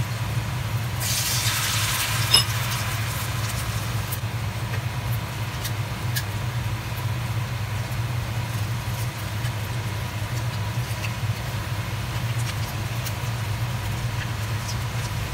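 Samosas frying in oil in a wok, a soft sizzle with scattered crackles that swells for a second or so about a second in. A single sharp metal clink about two seconds in, and metal tongs click against the wok as the samosas are turned. A steady low hum runs underneath.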